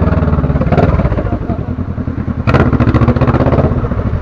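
Motorcycle engine running steadily as the bike is ridden, with a fast, even pulsing. A brief rushing noise comes about two and a half seconds in.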